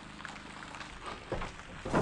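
Faint background music stops about a second in, then a stepladder being handled gives two dull knocks.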